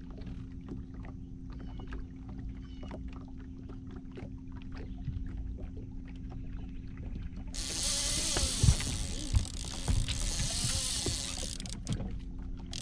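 Boat motor running steadily with a low hum under faint ticks and splashes of water against the hull. About seven and a half seconds in, a loud hiss cuts in suddenly and stops just as suddenly about four seconds later.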